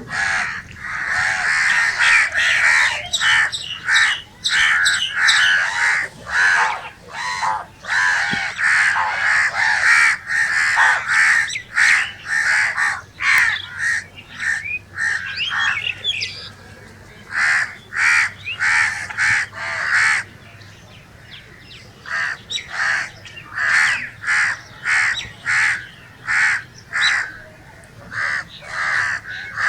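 Crows cawing over and over in short, closely spaced calls that often overlap, with a brief pause about two-thirds of the way through before the cawing starts again.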